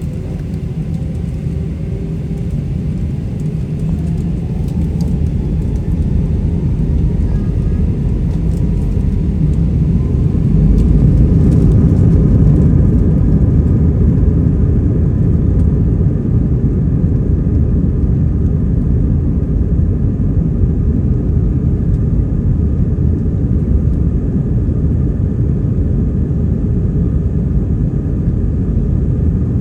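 Airbus A320 cabin noise during the takeoff run: the engines spool up with a faint rising whine over a deep, steady rumble. The sound grows louder for about the first ten seconds, then holds steady at takeoff power.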